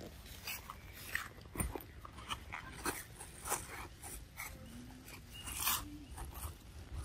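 Dry leaf litter crackling and rustling in scattered short crunches, with a faint low sound about five seconds in.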